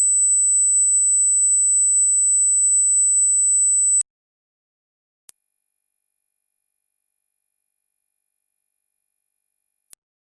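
Hearing-test tones: a steady, very high pure tone that stops about four seconds in, then after a short gap a louder, higher pure tone that lasts about five seconds. Such high tones drop out of hearing with age, so which ones can be heard tells the age of the ears.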